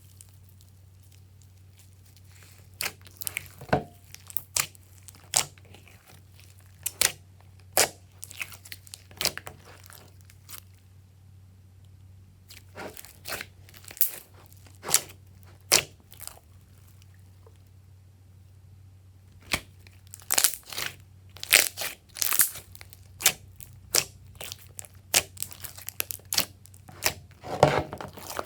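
Glossy slime being squeezed and stretched by hand, giving sharp sticky clicks and pops in runs, with a few short quiet pauses.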